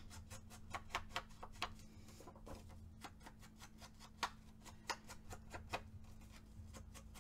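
Ink blending tool being dabbed and rubbed along the edges of a sheet of patterned paper on a tabletop: irregular light taps, a few a second, over a low steady hum.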